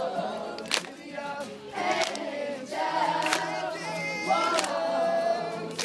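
A group of voices singing a song together, with some notes held, and a few sharp hits at intervals.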